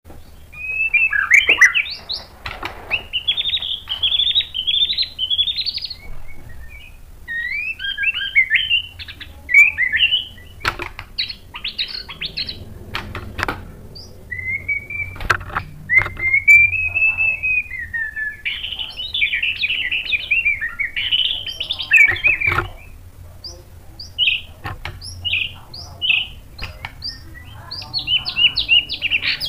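White-rumped shama singing: varied phrases of quick trills and rising and falling whistles in bursts separated by short pauses, with a few sharp click-like notes.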